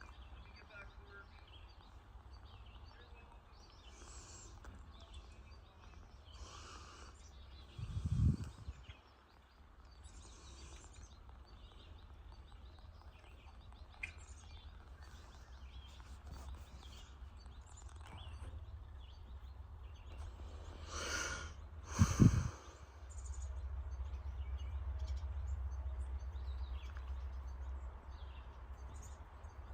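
Birds chirping in short, scattered calls over a steady low rumble, with two loud thumps, one about eight seconds in and one near twenty-two seconds.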